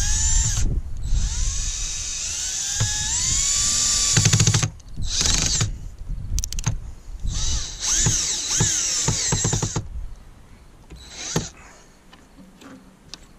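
Bauer cordless drill driving screws through a rub rail end cap into the boat's side, its motor whining in several runs of up to about three and a half seconds, rising and falling in pitch, with a short burst near the end.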